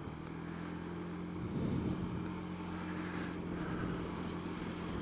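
Honda Dio scooter engine running steadily under way, heard from the rider's helmet camera, with a rushing noise that swells about a second and a half in and again later.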